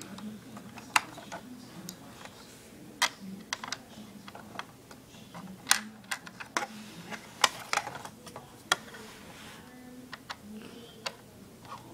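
Irregular sharp clicks and taps of a toy remote-control car's plastic parts being handled and screwed together during assembly.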